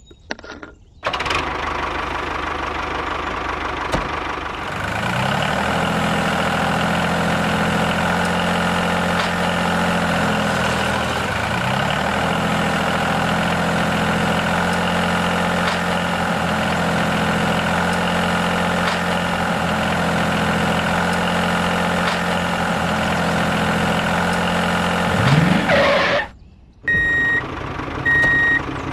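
A diesel engine starting about a second in and then running steadily, a low even chugging. It revs up briefly near the end and cuts off suddenly, followed by regular reversing beeps.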